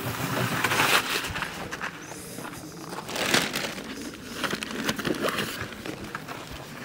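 Fabric rustling and crinkling as a padded folding camping cot is shifted and adjusted, in several bursts with a few light knocks.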